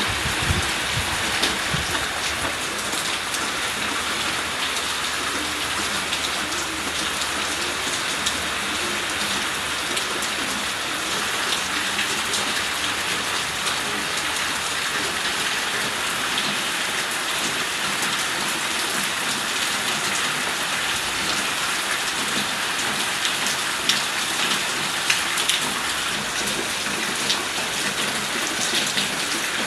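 Steady rain falling and pattering on surfaces, with a low rumble in the first second or so and a few louder drop hits near the end.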